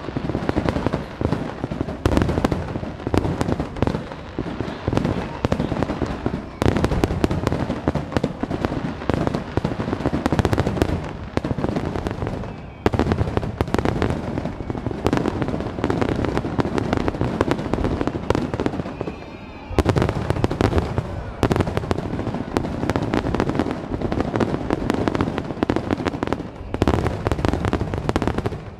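Fireworks display: a dense, continuous barrage of shell bursts and crackling, with fresh loud volleys breaking in about 7, 13 and 20 seconds in.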